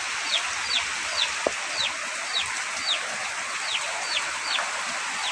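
Chicks peeping: short, high, falling peeps repeated about twice a second over a steady hiss.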